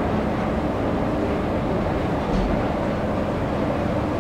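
Metro station escalator running with a steady mechanical rumble and hum, and a single short knock about halfway through.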